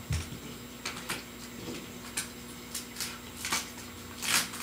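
Paper being handled off to the side, a handful of short rustles and light taps spread through, the loudest near the end, over a faint steady hum.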